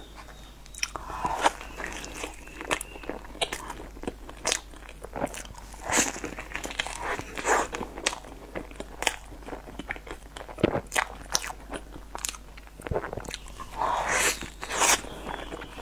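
Close-miked eating sounds: a person biting into and chewing soft cream-filled roll cake, with many short wet smacks, clicks and some crunch.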